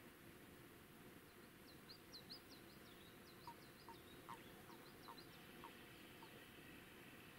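Faint birdsong: a quick run of short high chirps through the first half, with a few lower single notes among them, over a quiet outdoor background.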